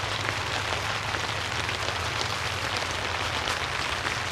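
Steady rain falling on a tent roof, heard from inside, with the ticks of single drops through it.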